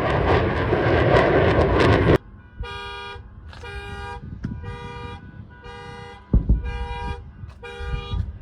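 A loud, steady roar cuts off suddenly about two seconds in. It is followed by a horn sounding in short, evenly spaced blasts, roughly three every two seconds.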